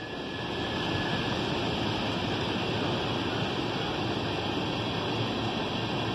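A steady rush of heavy rain, with a freight train of tank cars rolling past.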